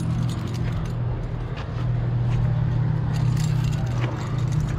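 Climbing gear (cams and carabiners on the harness rack) clinking and jingling at scattered moments as the climber moves, over a steady low drone.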